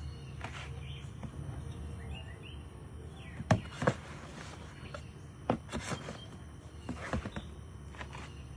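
Handling noise: several sharp knocks and rustles, the loudest about three and a half and four seconds in, over a steady low hum.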